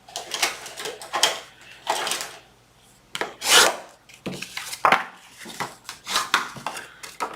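Scored cardstock being rubbed down along its score lines: a series of irregular paper rubbing and scraping strokes against a hard work surface, the loudest about three and a half seconds in.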